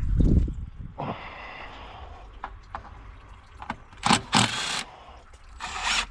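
Parts and tools being handled in a workshop: a heavy low thump at the start, light clicks and knocks, then two short bursts of rustling, hissing noise about four and six seconds in.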